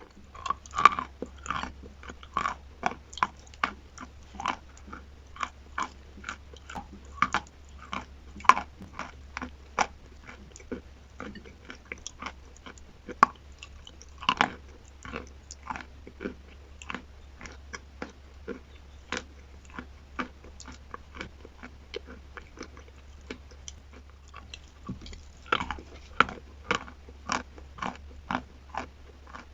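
Close-miked chewing of chalk mixed with paste: sharp crunches about two a second, with a steady low hum underneath.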